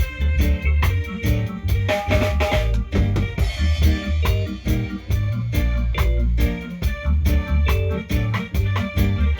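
A live band playing an instrumental groove: drum kit keeping a steady beat with snare and rimshot hits over a heavy bass line, with pitched instruments above.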